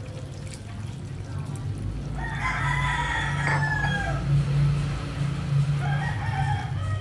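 Rooster crowing: one long call of about two seconds that falls in pitch at the end, then a shorter call about six seconds in.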